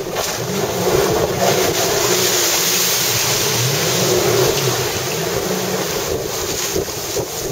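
Jet ski engine running hard as the craft spins in tight doughnuts, with churning spray and wind on the microphone. It is loudest between about one and four and a half seconds in.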